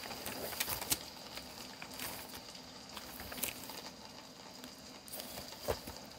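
Thin Bible pages being turned by hand: a series of soft paper rustles and flicks, the loudest about a second in and again near the end.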